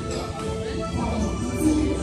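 Music with slow, held notes over a steady low bass.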